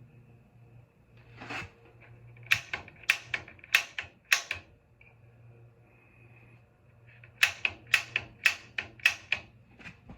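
Water heater's piezo pilot igniter being pressed repeatedly, giving sharp snapping clicks in two runs of about seven, each a couple of seconds long, to light the pilot flame.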